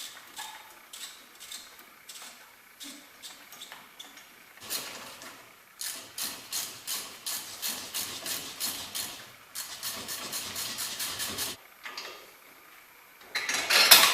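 Hand tool work on the car's front wheel hub: runs of rapid, even metallic clicking strokes, speeding up partway through, then a loud metal clatter near the end.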